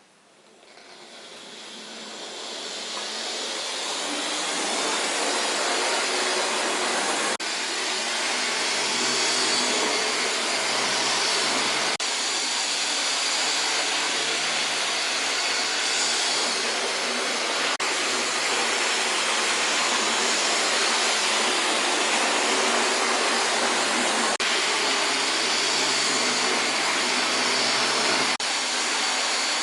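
A train running along the track: a steady rushing noise that fades in over the first few seconds, with a faint click every few seconds.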